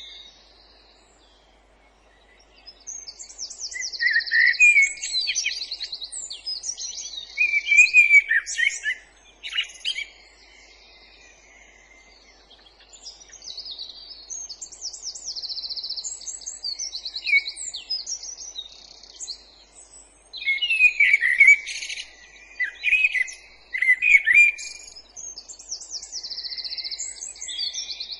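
Songbirds singing in woodland: varied whistled phrases and rapid trills, in bursts with short quiet gaps, about a second in and around ten seconds in.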